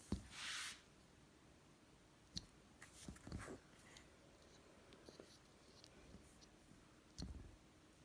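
Near silence in a small room, broken by a brief soft hiss near the start, a sharp click, and a few faint soft knocks, as of small toys and plastic egg halves being handled.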